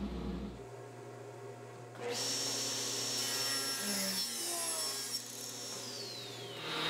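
Table saw ripping a solid cherry board, the cut finishing early on, then the saw running on with a high whine that drops in pitch near the end as it winds down.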